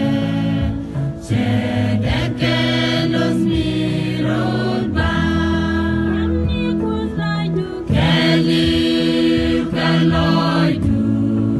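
Mixed choir of women and men singing a Christian song together.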